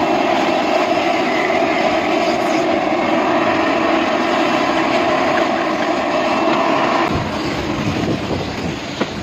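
Self-service car-wash vacuum running steadily, its hose sucking dirt out of a car's interior, then cutting off about seven seconds in as its paid time runs out.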